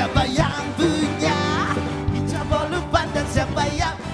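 Upbeat pop music with singing: the show's theme music playing over its closing title card.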